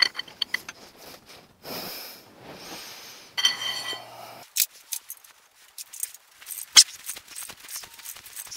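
Steel hand tools clinking and clicking against the studs and cast-iron block of a Ford flathead V8 during cylinder-head stud removal: a stud socket and long wrench knock and scrape on the metal. There is a ringing metallic clink at the start and again about three and a half seconds in, a sharp click near seven seconds, and a run of quick small clicks.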